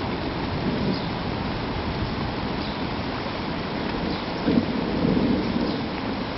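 Steady rain with a rumble of thunder that swells about four and a half seconds in and eases off a second later.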